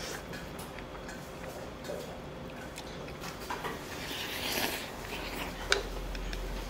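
Eating sounds: chewing, with light clicks of utensils on dishes and one sharper click near the end, over a low steady room hum.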